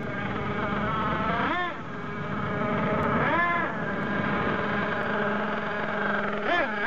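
Thunder Tiger MTA4 S28 nitro RC monster truck's small two-stroke glow engine running hard as the truck drives up, its pitch rising and falling with the throttle. It gives a few quick throttle blips near the end.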